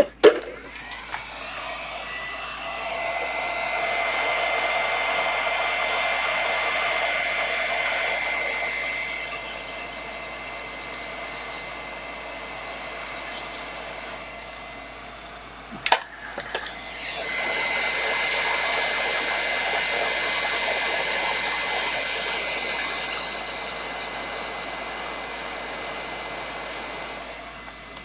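Hot air tool blowing steadily with a thin whine, shrinking heat-shrink tubing over a soldered cable joint. The rush of air swells louder twice, with a brief click around the middle.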